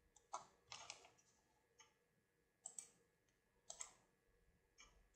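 A handful of faint, sharp computer mouse clicks, roughly one a second, over quiet room tone.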